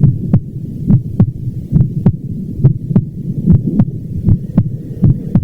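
Heart sounds beating steadily at about 75 beats a minute. Each beat is a pair of thumps close together, the lub-dub of the first and second heart sounds, over a low steady rumble.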